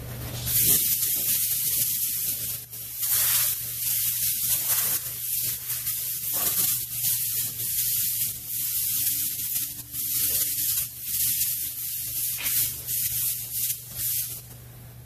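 A pressurised spray hissing loudly in uneven bursts, starting about half a second in and stopping shortly before the end, over a faint steady low hum.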